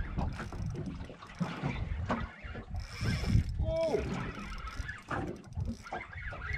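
Fishing reel being cranked in with a hooked fish on the line, its gears clicking and whirring under load, over a steady low buffeting of wind on the microphone.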